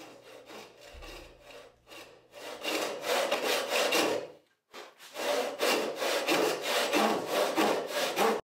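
A homemade Roubo frame saw resawing a board by hand, with repeated back-and-forth rip strokes through the wood as a cut is started at a scribed edge. The strokes are light at first and grow louder after about two and a half seconds, with a brief pause about halfway, then run steadily until they stop just before the end.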